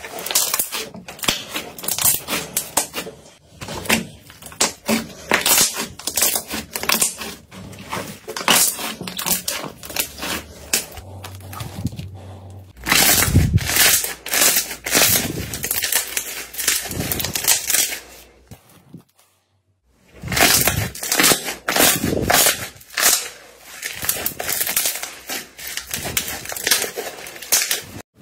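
Thick orange slime squeezed and pressed by hand, giving rapid clicking, popping and crackling as trapped air bubbles burst, with a short pause about two-thirds through.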